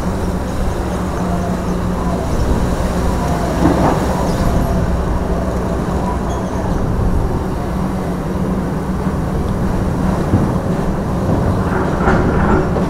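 A heavy engine running steadily, a continuous low drone.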